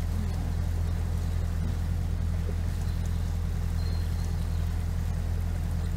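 Kent 28 Launch motorboat's engine running steadily underway: a low, even drone.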